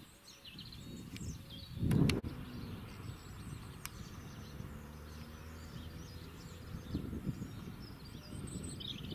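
Small birds chirping over a low wind rumble, with a loud thump about two seconds in. A faint steady drone from a distant two-car diesel multiple unit runs underneath through the middle.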